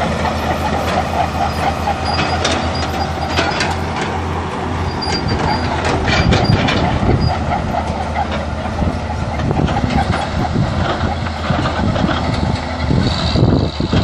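Fiat-Allis 14C crawler bulldozer's diesel engine running steadily under load as it drives, with its steel tracks clanking and giving a few brief high squeaks.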